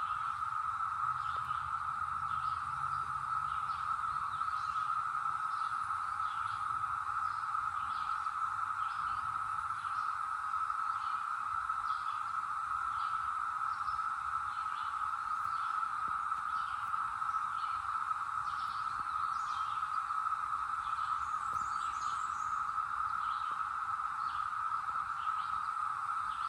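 Chorus of Brood X periodical cicadas making a continuous, steady drone. Over it come short, higher chirps about once a second.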